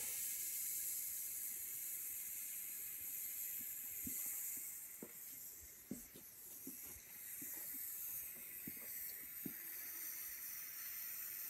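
Steady high hiss of an ewm Tetrix 230 AC/DC TIG welder's arc during welding, with a few faint knocks.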